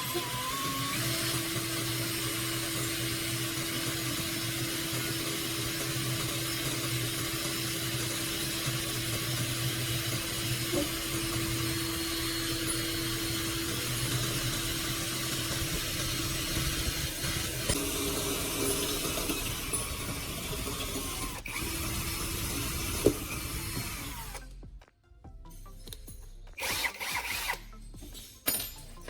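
An electric power tool running steadily, with a constant hum under its noise, for most of the time. It stops about 24 seconds in, followed by a few short clicks.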